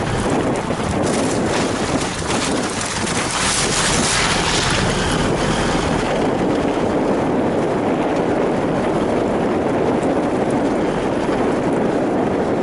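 Isuzu 4WD engine and tyres running steadily over a muddy track, with wind on the microphone; about one to five seconds in, a harsher hiss rides over it.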